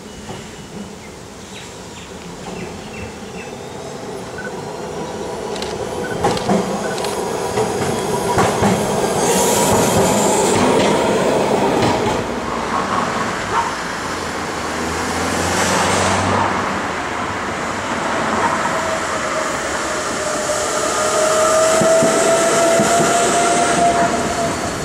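A Melbourne W-class tram running along street track, its wheels clacking over the rail joints, with a brief high squeal about ten seconds in and passing road traffic. Near the end a steady whine slowly rises in pitch.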